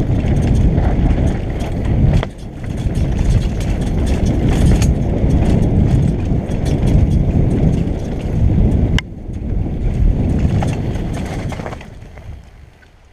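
Downhill mountain bike ridden fast down a dirt trail, heard from a helmet-mounted camera: a dense rumble of wind on the microphone and tyres on dirt, with the bike rattling over bumps and a sharp knock about nine seconds in. The noise dies down near the end.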